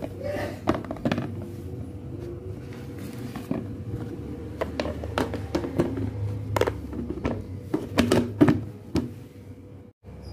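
Plastic food storage boxes being handled: tomatoes set inside, a snap-on lid pressed down and the boxes set down and stacked, giving a run of light clicks and knocks, loudest about eight seconds in. A steady low hum runs beneath.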